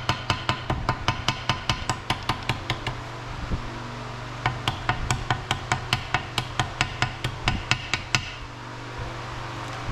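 A small ball-peen hammer tapping quickly and lightly on gasket material against a metal edge, about five taps a second, cutting out a homemade gasket. The tapping pauses for about a second and a half about 3 s in, resumes, and stops about 8 s in.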